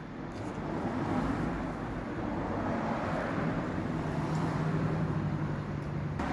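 Steady hum of a motor vehicle engine running, with road traffic noise, a little louder from about a second in.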